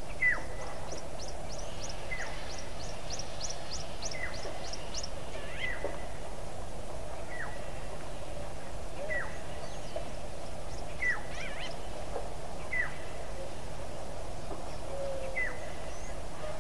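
A bird calling over and over, a short whistle that dips in pitch, repeated about every second and a half, with a rapid series of high ticking notes in the first few seconds, over a steady background hiss.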